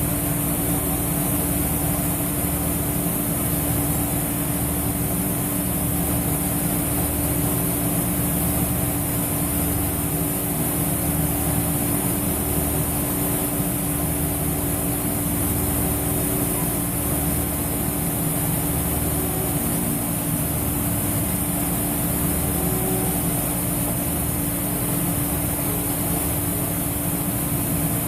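Mori Seiki NH5000 horizontal machining center waveform-milling P110 steel with a half-inch five-flute carbide end mill. The cut makes a steady, unbroken tone over a low hum that pulses slowly, with a constant high hiss.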